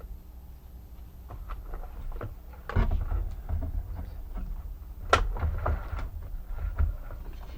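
Irregular clicks, taps and knocks of plastic parts being handled and worked on, with two louder knocks about three and five seconds in.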